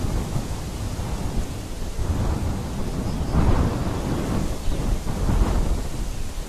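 Wind buffeting the camera's microphone: a loud, uneven low rumble that swells in stronger gusts about halfway through.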